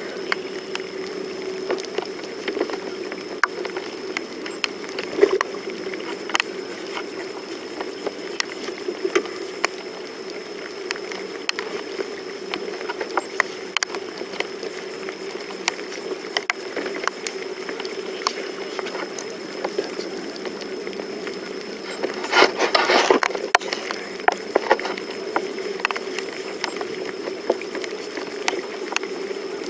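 Outdoor ambience in a small fishing boat in the rain: a steady hum under an even watery hiss, with scattered sharp ticks like raindrops striking the boat. About three quarters of the way through comes a louder rustle or splash lasting about two seconds.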